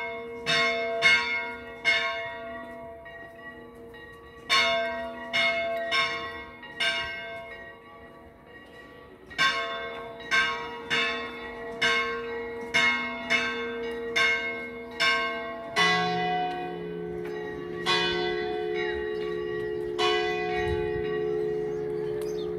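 Church bells ringing: a higher bell struck in quick groups of strikes with short pauses between them, each strike ringing on. About sixteen seconds in, a deeper bell takes over, striking slowly about every two seconds.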